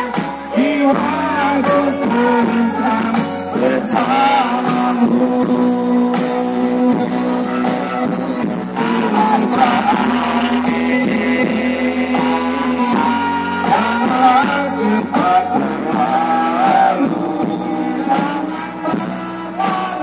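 Voices singing into handheld microphones over loud amplified music with a steady bass line that changes note every few seconds.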